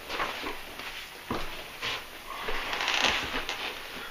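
Rustling, creaking and a couple of dull knocks as a person moves in close to the microphone and sits down.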